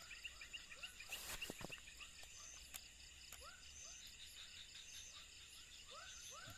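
Faint night chorus of crickets and other insects: a steady high trill with rows of rapid chirps and short repeated calls. There is a brief rustle about a second in.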